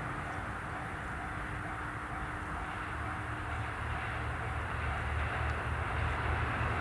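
JR Kyushu KiHa 183-1000 diesel train approaching on the line. Its engine and running rumble grow slowly louder, heavier in the low end during the second half.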